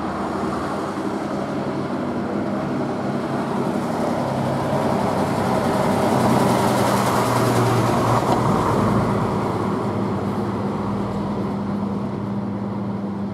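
Vintage half-cab double-decker bus driving past. Its engine grows louder as it approaches, is loudest as it goes by about six to eight seconds in, then drops in pitch and fades as it pulls away.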